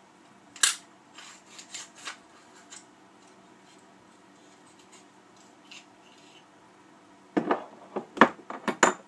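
Metal clicks and clacks from an AR-15 upper receiver being taken apart by hand, the charging handle and bolt being slid out. One sharp click about half a second in and a few lighter ones after it, then a quick run of metallic clacks near the end.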